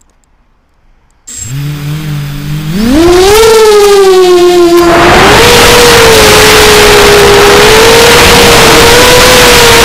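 Brushless motors and propellers of an MB Epic 280 mini H-frame racing quad on a 5S battery spinning up about a second in, the pitch climbing as it lifts off. It then settles into a loud steady propeller whine under a heavy rush of air noise at full-speed flight.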